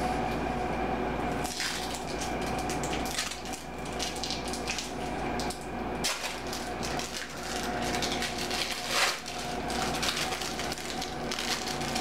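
Plastic wrappers of individually wrapped cheese slices crinkling and crackling as they are peeled open by hand, in irregular clusters of crackles over a steady background hum.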